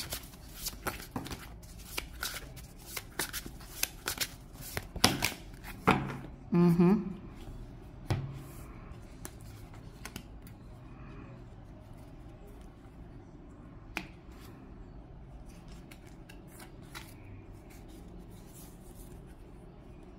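Oracle cards being shuffled by hand, a quick run of flicks and clicks over the first six seconds, with a short low hum about a third of the way in. After that come quieter, scattered taps as cards are laid down on a wooden table.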